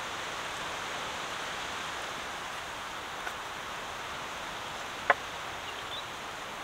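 Steady outdoor hiss of ambient noise, with one sharp clack about five seconds in as ginger pieces are tipped from a small clay bowl into a larger clay bowl.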